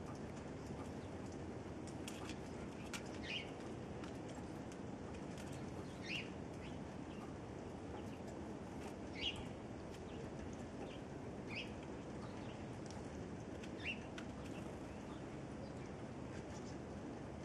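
Chickadees giving short high chirps, scattered singly or in pairs a second or more apart, with brief wing flutters as they fly to and from a seed feeder, over a steady low background rumble.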